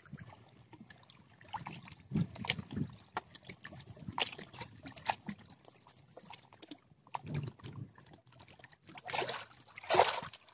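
Small waves lapping and splashing at the lake's edge in short, irregular splashes.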